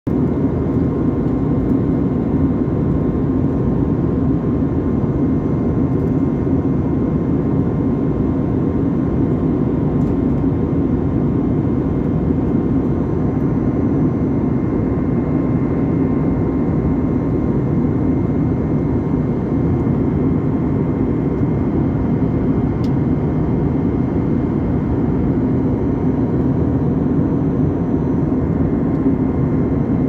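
Jet airliner cabin noise in flight, heard beside the wing: a steady, loud rush of engine and airflow noise with a faint steady tone above it, unchanging throughout.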